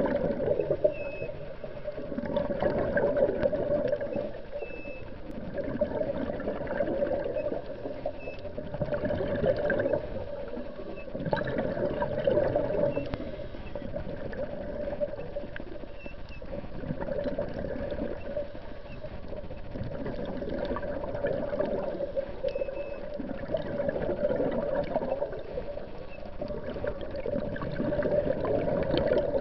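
Muffled underwater water noise heard through a camera's waterproof housing, swelling and fading every few seconds.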